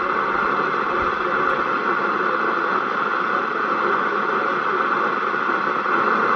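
FM CB radio's speaker giving out steady, loud static hiss with no voice in it.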